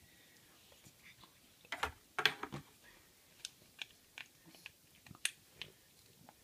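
Small plastic Lego pieces clicking and knocking together as they are handled: a string of irregular sharp clicks, with a denser cluster about two seconds in.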